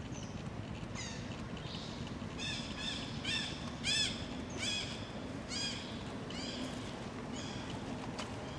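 A run of about ten short, high-pitched animal calls, each rising and falling in pitch, roughly every half second, the loudest about four seconds in.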